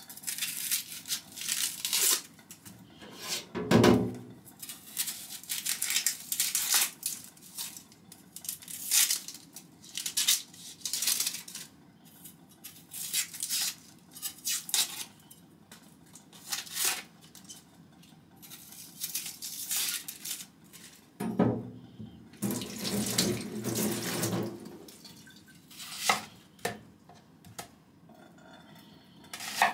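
An onion being peeled over a kitchen sink: its dry papery skin crackles and tears in irregular rustling bursts. A few duller knocks come about four seconds in and again around three-quarters of the way through.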